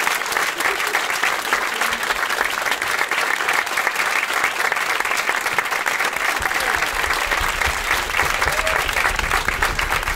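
Audience applauding steadily, a dense, sustained clapping.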